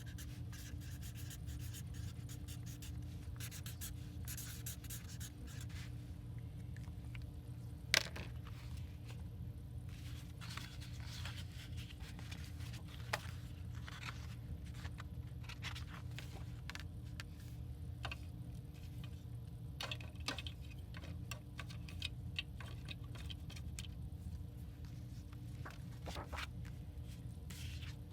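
Hands working with paper on a desk: scattered rustling, scraping and light taps, with a sharp click about eight seconds in and a smaller one a few seconds later, over a steady low hum.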